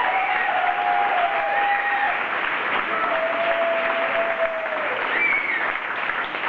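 Audience applauding, with cheering voices over the clapping.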